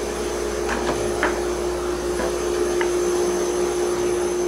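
Felder planer running steadily with its dust extraction: an even hum with a high whine over it and no wood being cut. A few light clicks sound over the running machine.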